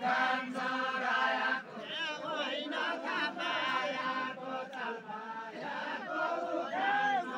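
A group of men singing a deuda folk song together in a chant-like, unaccompanied melody, holding long notes that waver and bend.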